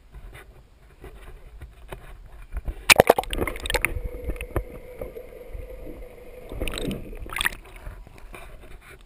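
Sea water splashing and gurgling as a boat-side action camera plunges under the surface about three seconds in. Underwater the sound turns muffled, with a steady hum, then splashes again as the camera breaks back out about two thirds of the way through.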